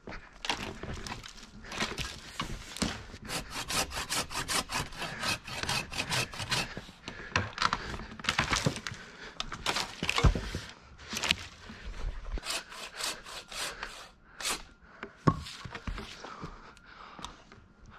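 Manual pole saw cutting through a tree branch with quick, rhythmic push-pull strokes, about three a second. A heavy thump comes about ten seconds in, followed by a second shorter spell of sawing and another thump.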